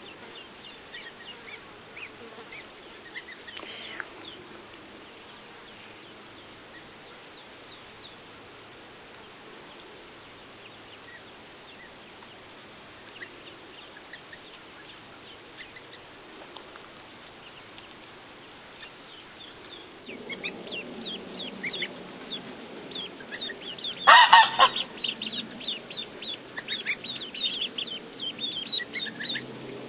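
Baby goslings and ducklings peeping, with many short high cheeps that grow louder and busier about two thirds of the way through. One loud honk comes near the end.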